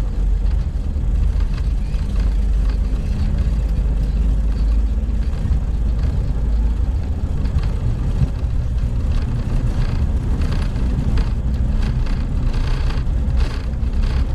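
Boeing 727-100F on its takeoff roll, heard in the cockpit: a loud, steady low rumble from its three Pratt & Whitney JT8D engines at takeoff thrust and the wheels running down the runway. A series of light thumps comes through in the second half.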